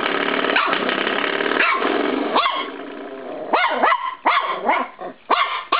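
Norfolk Terrier puppy growling continuously with short yips breaking through, then a quick run of high-pitched barks from about three and a half seconds in.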